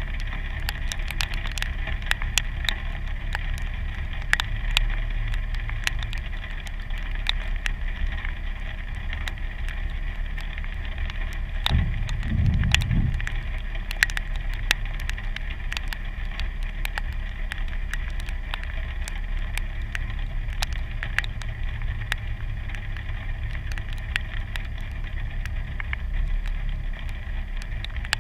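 2015 Jeep Wrangler Sport's 3.6-litre V6 idling with a steady low hum, with a brief louder swell about twelve seconds in. Raindrops tick irregularly on the hood and the hood-mounted camera.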